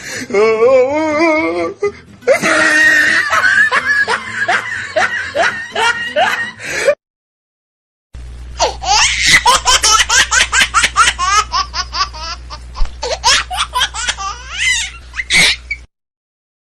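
Laughing sound effects: loud, hearty human laughter in wavering peals, then a sudden cut to silence for about a second, followed by a second laugh clip of rapid, high-pitched bursts over a low hum.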